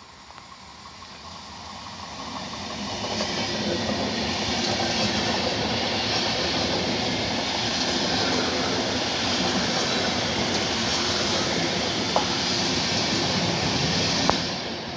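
Deutsche Bahn Intercity passenger train, control car leading and an electric locomotive pushing at the rear, approaching and passing close by. The wheel-and-rail noise swells over the first four seconds into a steady, loud rumble and hiss. Two sharp clicks come near the end as the rear of the train goes by.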